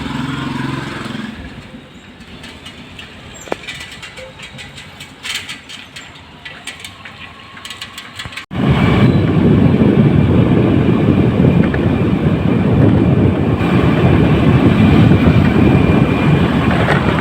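Faint background noise with scattered clicks. About halfway through it switches abruptly to a loud, steady rumble of wind buffeting the microphone, with vehicle noise, as from riding on a moving vehicle.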